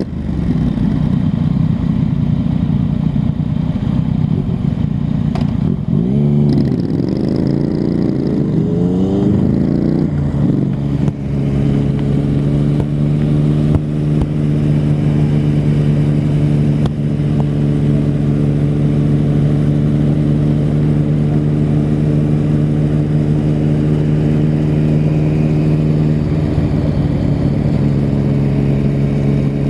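2019 Triumph Street Scrambler's parallel-twin engine through its stock exhaust, heard from the rider's position while riding. The engine rises and falls in pitch several times between about six and eleven seconds in as it revs through the gears, then holds a steady note while cruising, with a brief change near the end.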